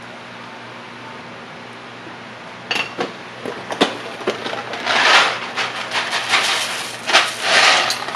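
Dry ditalini pasta being poured from a container into a pot of soup, rattling. A few separate clicks come first, about three seconds in, then the rattling runs dense and loud in two long stretches.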